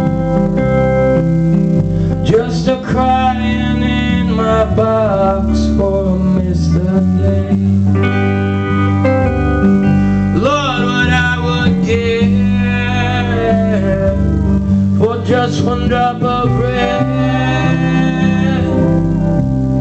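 Live band playing a slow song: a man sings in three phrases over guitars, with a lap steel guitar and a steady bass underneath.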